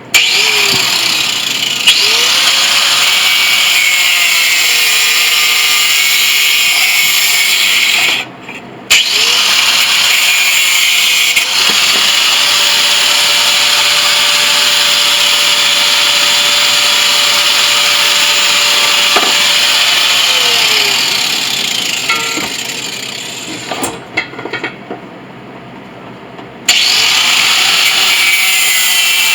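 Angle grinder running at full speed with a loud, high hiss, pretty loud for just an angle grinder. Its pitch sags and recovers as it is pressed into the work. It stops briefly about a third of the way in, then later winds down over a couple of seconds, and starts again near the end.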